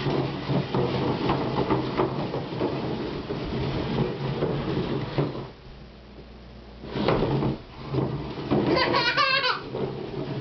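Small plastic toddler chairs pushed across a ceramic tile floor, their legs scraping and rattling, with a pause of about a second and a half just past the middle. Near the end a toddler gives a short high squeal.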